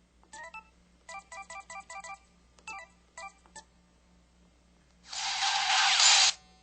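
EV-K100 mobile phone playing its built-in effect sounds through its small speaker: short electronic beeps, including a quick run of about six tones, then a loud hiss-like burst about five seconds in that lasts just over a second.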